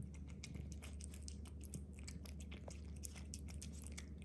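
Domestic cat eating shredded chicken thigh: faint, irregular clicks of chewing and lapping, several a second, over a low steady hum.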